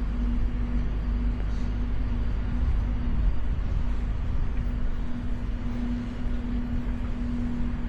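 Steady low engine rumble with a droning hum that drops away for about a second midway, then returns.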